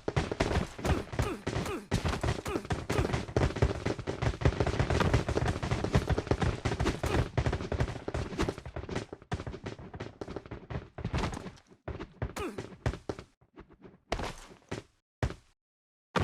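Gunfire sound effects: rapid automatic fire, thinning out into scattered separate shots in the last few seconds.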